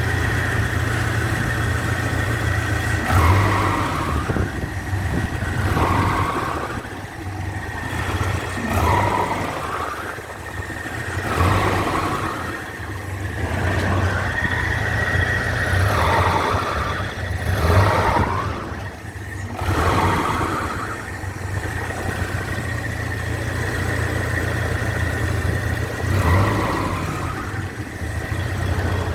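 A vehicle engine running with a low hum and a steady high-pitched whistle over it, while a mid-pitched sound swells and fades every couple of seconds. The source of the whistle is unknown, and the owner is asking what it is.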